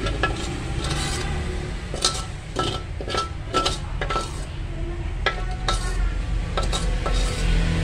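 Metal spoon scraping and clinking against the inside of an aluminium wok, scooping out fried mắc mật leaves left in the oil: a string of irregular sharp clinks, some with a brief ring. A steady low hum runs underneath.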